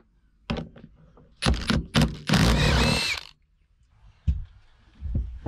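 Cordless drill turning a socket on a long extension to undo a rear-seat mounting bolt: a few short trigger blips, then a run of over a second with the motor's whine rising and falling. A single sharp knock a little past four seconds in.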